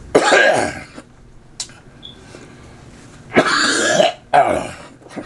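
A man coughing hard while choking on food: one forceful, throaty cough near the start, then two more in quick succession near the end, as he tries to clear his throat.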